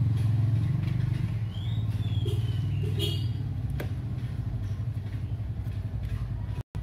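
Motor vehicle engine running with a steady low hum. A brief high squeak rises and falls about two seconds in, and a light click comes near four seconds.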